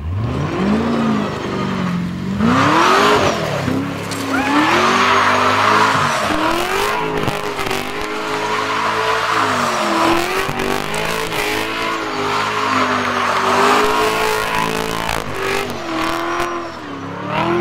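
Holden VE Commodore rally car's V8 engine revving hard as the car slides through a loose-surface corner. The revs climb steeply in the first few seconds, then stay high and waver, with a brief drop near the end, over tyre squeal and scrabbling on the gravel.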